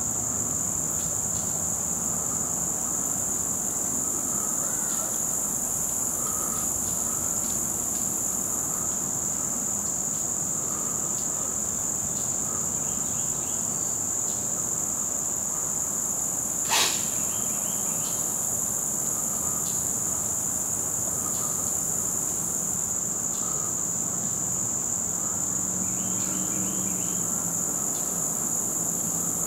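Steady, unbroken high-pitched drone of a late-summer insect chorus in hardwood woods. A single sharp click sounds about 17 seconds in.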